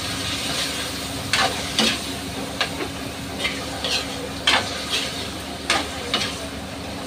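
Pork sizzling in oil in a wok on a gas stove while a spatula stirs it, scraping and knocking against the pan about once a second.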